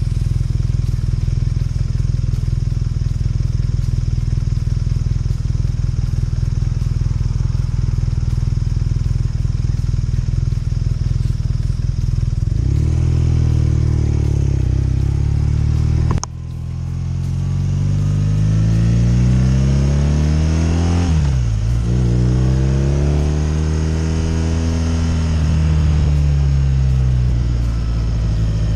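A 2015 BMW R nineT's boxer twin idles steadily for about twelve seconds, then pulls away. Its pitch rises and drops back with each gear change, with a sharp click at the first shift and another drop in pitch about five seconds later.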